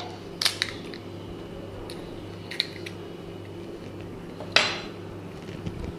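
Light taps and clinks on a metal pan: two small clicks near the start, a faint one midway, and one louder, sharp knock with a short ring about four and a half seconds in, over a steady low hum.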